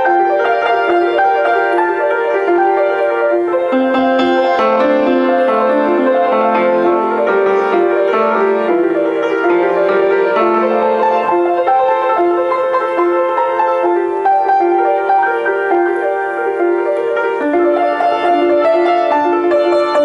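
Solo grand piano played live, a flowing improvised piece of many overlapping, ringing notes, with a lower line joining in from about four seconds in to about eleven seconds in.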